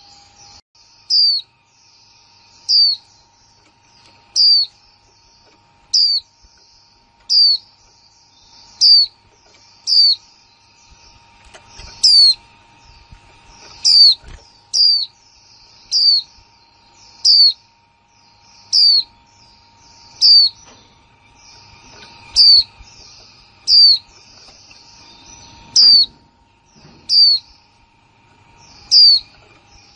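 Female Japanese white-eye call of the kind played to stimulate male white-eyes to sing: a short, high, falling chirp repeated very regularly about every one and a half seconds. Faint high twittering and a faint steady tone sit behind it.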